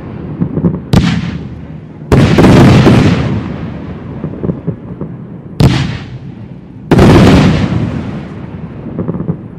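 Fireworks display: aerial shells bursting with sudden loud bangs, four big ones a second or more apart. Each is followed by a rumble that dies away over a second or two, and a few smaller pops come near the end.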